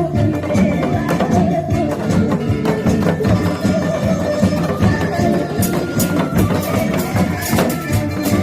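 Lively music with a steady beat of percussion hits over sustained instrumental notes, played by a performing troupe.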